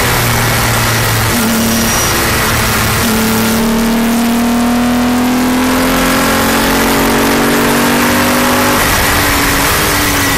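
Palmer JPLM racing car's engine heard from inside the open cockpit, over rushing wind and road noise. Its pitch shifts over the first few seconds, then climbs steadily under acceleration for about six seconds before dropping at a gear change near the end.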